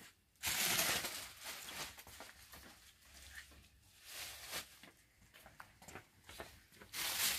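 Plastic packaging rustling, loudest about half a second in and again near the end, with quieter footsteps and handling noises in between.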